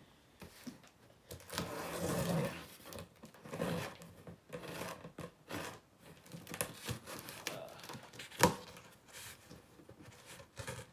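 A shipping box being opened by hand: irregular bursts of tearing and crinkling of the box and its packing, with one sharp knock about eight and a half seconds in.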